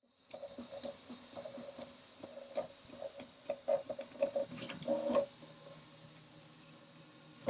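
Prusa i3 MK3S 3D printer with an MMU2S multi-material unit at work: stepper motors buzz in short, ticking pulses, two or three a second. About five seconds in it settles to a quieter, steady hum.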